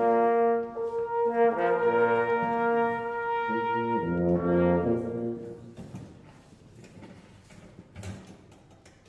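Brass quintet of two trumpets, French horn, trombone and tuba playing slow, sustained chords, with a low tuba note coming in about four seconds in. The music stops about five and a half seconds in, leaving a quiet pause with a small knock near the end.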